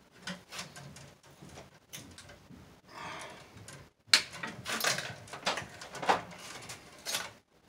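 Copper wires and a hand tool being worked inside a metal breaker panel: irregular light clicks, taps and scraping against the steel enclosure, with a sharp click just after four seconds in.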